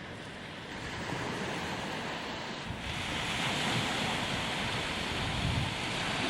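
Sea waves washing onto the shore, with wind buffeting the microphone; the surf grows louder about three seconds in.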